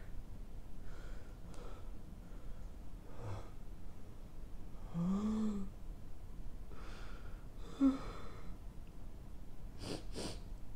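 A man crying quietly: separate shaky breaths and sniffs every second or two, with a short whimpering sob that rises and falls in pitch about five seconds in. Two quick clicks near the end.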